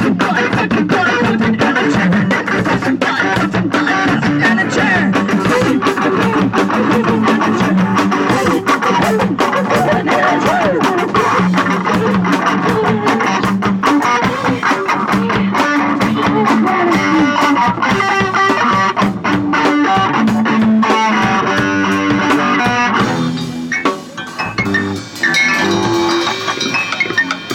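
A live punk rock band playing: electric guitar, bass guitar and drum kit, loud throughout, with a brief break in the playing near the end.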